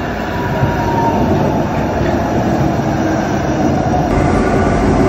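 CTrain light-rail train pulling into the station platform, getting steadily louder as it comes alongside, with a faint whine that falls slightly in pitch early on.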